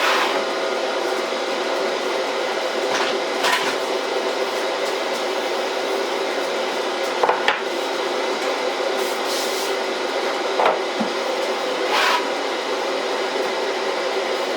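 Kitchen sounds: a steady hum with a few short knocks and clatters of utensils or cookware, about every three seconds.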